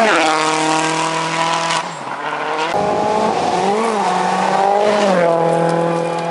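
Rally car engines at high revs on a gravel stage. The pitch drops sharply as a car goes by at the start, then holds steady. After an abrupt cut about a third of the way in, another car's revs rise and fall as it drives through.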